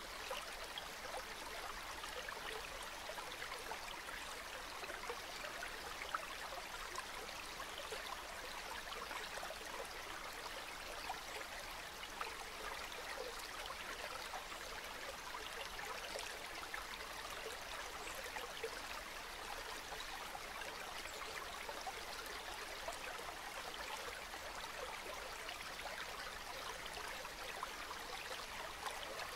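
Calm river water flowing: a steady, even rush of moving water that holds unchanged throughout.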